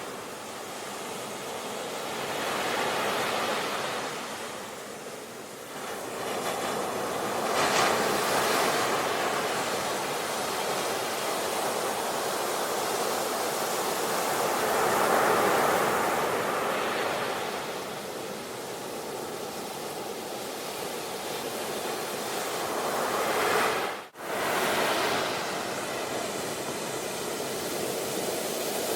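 Sea waves breaking and washing ashore in slow swells that rise and fall every few seconds, with a sudden brief gap about three quarters of the way through.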